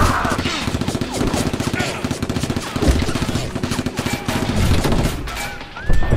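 Rapid bursts of Nerf blaster fire, many sharp shots in quick succession, going on for most of the time.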